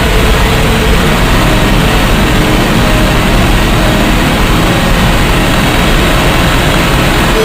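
Loud, dense, steady noise with a heavy low rumble and no clear pitch: a harsh electronic noise track.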